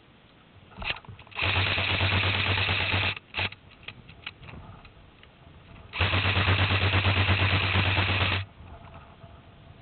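Airsoft electric gun firing two long full-auto bursts of about two seconds each, a rapid mechanical rattle over the gearbox motor's hum, with a couple of brief trigger pulls just before and between them.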